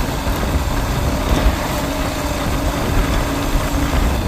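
Yamaha motorcycle cruising at a steady speed: a steady engine hum under a loud, uneven rumble of wind on the microphone.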